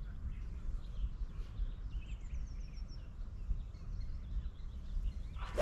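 Wind rumbling on the microphone with a few faint bird chirps, then near the end a single sharp crack of a golf club striking the ball.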